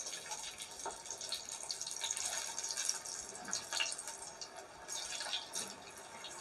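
Cabbage pakora batter deep-frying in hot oil in a steel kadai: a steady sizzle with many small pops and crackles.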